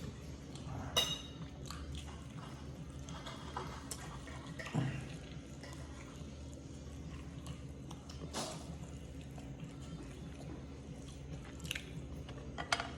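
Quiet eating sounds: soft chewing with a few light, scattered clicks of cutlery or dishes over a steady low hum.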